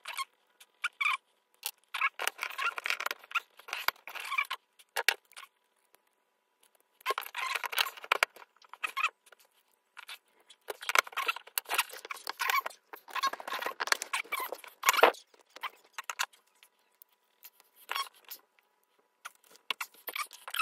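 Close handling noise of small metal parts: scratchy scraping and sharp clicks in irregular spells as a hex driver works the set screw of a pinion gear on a brushless RC motor's shaft.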